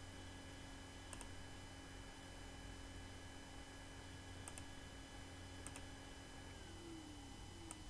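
Four faint, separate computer mouse clicks spread over several seconds, over a steady low electrical hum.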